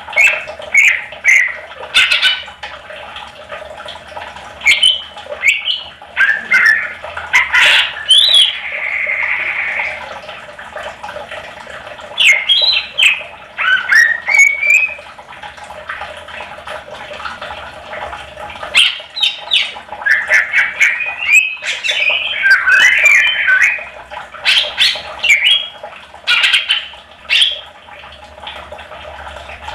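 Greater green leafbird (cucak ijo) in full song, a varied run of quick chirps, whistles and slurred notes in short phrases, with a harsh buzzing note about eight seconds in.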